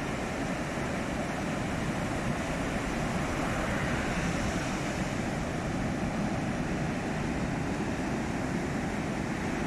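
Heavy ocean surf: large waves breaking on the shore make a steady, continuous wash of noise, slightly stronger about four seconds in.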